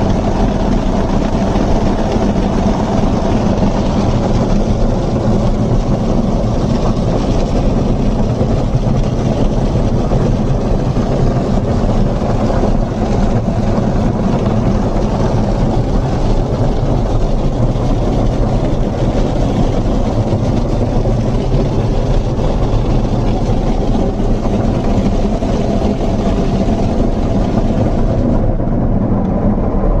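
Heavy waterfall water pouring and drumming on the roof, sunroof glass and windshield, heard from inside an SUV's cabin over the low hum of its running engine. The sound is loud and steady, and its high hiss thins out near the end.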